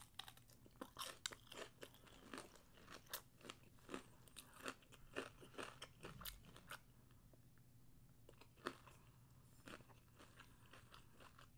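Faint close-up chewing of crunchy fried shrimp, with a quick run of crisp crunches that thins out to a few scattered ones in the second half.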